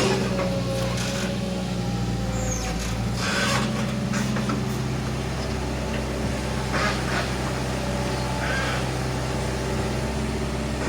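A Hitachi Zaxis 120 excavator's diesel engine runs steadily under working load. A few short noisy bursts from the digging work come through over it.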